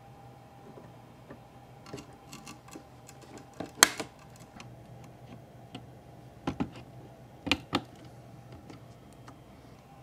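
Sharp plastic clicks and knocks as a 24-pin ATX power connector is handled and pushed into its motherboard socket. The loudest snap comes a little before halfway, with a few more clicks later on.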